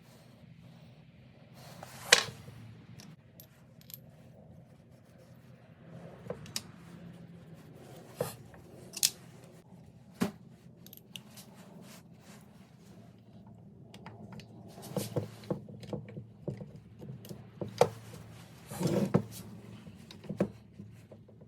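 Small metal engine parts and hand tools being handled on a workbench during a two-stroke top-end rebuild: scattered sharp clicks and clinks with a short rattle near the end, the loudest knock about two seconds in.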